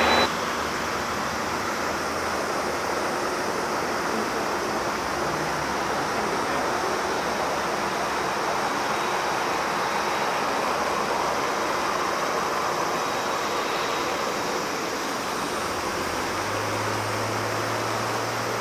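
Boeing 787 Dreamliner taxiing onto the runway with its engines at idle, heard from a distance as a steady rushing hiss. A low steady hum joins near the end.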